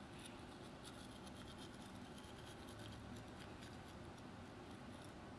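Faint, scratchy scrubbing of a manual toothbrush brushing teeth: many small irregular scrapes of bristles on teeth.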